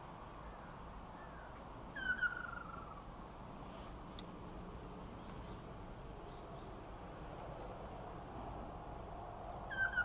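Ryukyu ruddy kingfisher (Halcyon coromanda bangsi) calling: a falling, rolling trill of under a second about two seconds in, and again near the end. This is the male's call to a female.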